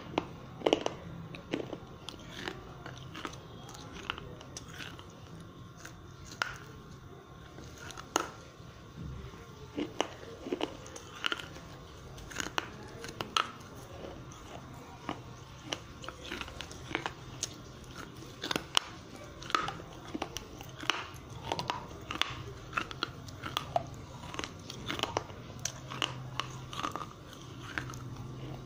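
Broken terracotta clay diya pieces being bitten and chewed: a run of sharp, irregular crunches as the fired clay cracks and grinds between the teeth.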